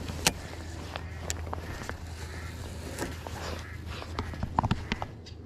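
Handling noise from a baitcasting rod and reel in a kayak: a few sharp clicks and knocks, with a cluster of them near the end, over a low steady hum.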